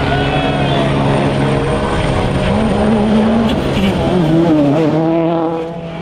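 World Rally Car's 1.6-litre turbocharged four-cylinder engine running hard on a special stage, its revs rising and falling repeatedly.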